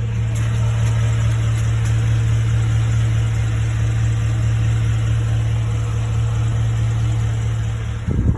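2013 Ford F-150's 5.0 V8 idling with a steady low hum, recorded for a weird noise the owner hears strongest on the passenger side. A short bump sounds near the end.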